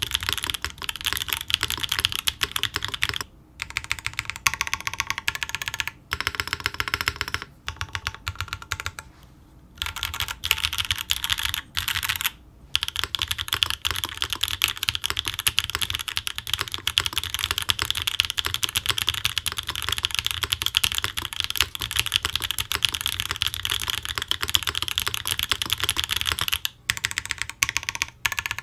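Typing on a Mode Design Tempo 60% mechanical keyboard with Obscura linear switches: fast, clacky keystrokes. There are a few short breaks in the first half, then a long unbroken run of typing.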